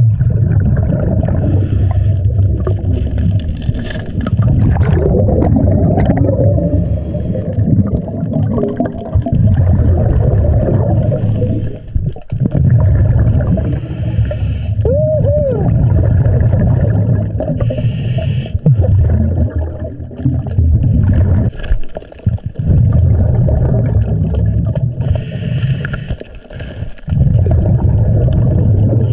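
Scuba regulator breathing heard underwater: a steady low rumble and gurgle of exhaled bubbles, with a hiss every few seconds as the diver breathes in. A brief squeaky whistle comes about halfway.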